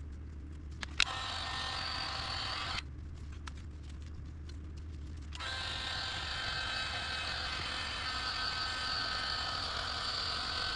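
Heat gun blowing hot air to shrink heat-shrink tubing over crimped wire connectors. It comes on with a click about a second in, stops for a few seconds, then runs again until a click at the end. A steady low hum sits underneath.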